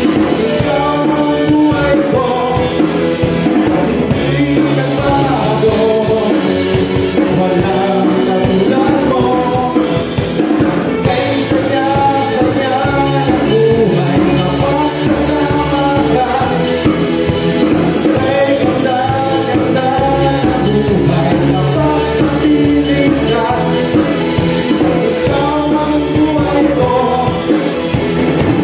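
Live worship band playing a Tagalog praise song: a man and a woman singing into microphones over electric guitar, bass guitar and a Juno keyboard.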